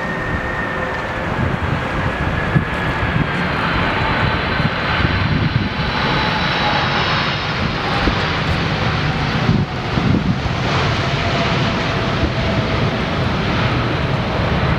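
Boeing 747-400 on landing approach with its four jet engines running, passing close by. A heavy rumble carries high engine whine tones that slowly fall in pitch as it goes past.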